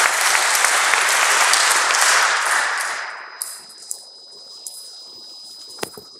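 Audience applauding, the clapping dying away about three seconds in. Afterwards only a faint steady high-pitched tone and a couple of light clicks near the end remain.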